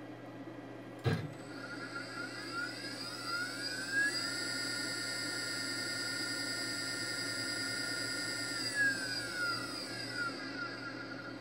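Desktop CNC router's stepper motor drive whining through a move: the whine rises in pitch as the motors speed up over about two seconds, holds steady, then falls as they slow to a stop. A sharp click sounds about a second in.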